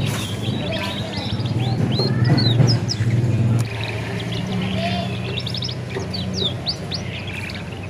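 Young canary twittering its practice song: quick runs of high rising and falling chirps and trills, typical of a young canary learning to sing. A low steady drone runs underneath, loudest in the first half.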